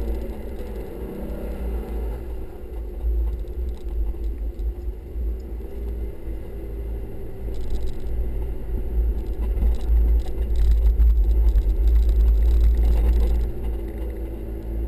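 Four-wheel-drive vehicle driving over soft sand dunes, heard from inside the cabin: the engine runs with a heavy low rumble. It grows louder about two-thirds of the way through, then eases off near the end.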